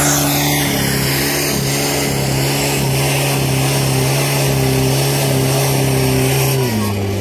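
Portable fire pump's engine running hard and steady as it pumps water through the hoses. About six and a half seconds in, its note drops lower.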